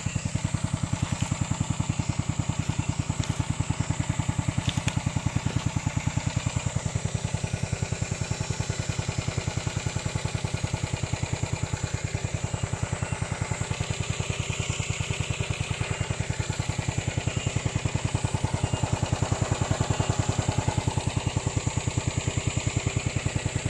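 Small single-cylinder petrol engine of a homemade remote-controlled lawn mower running steadily at an even, rapid firing beat.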